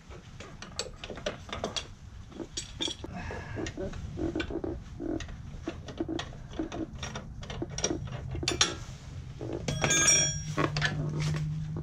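Steel wrenches clicking and knocking against the suspension's upper control arm as a rusted nut is worked loose, with a sharper ringing metal clink about ten seconds in.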